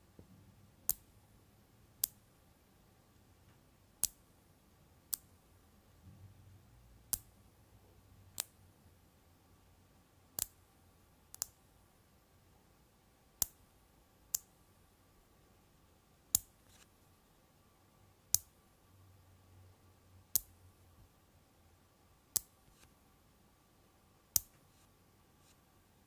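Small 5 mm magnet balls snapping onto a ball structure, one sharp click at a time, about fifteen clicks spaced one to two seconds apart.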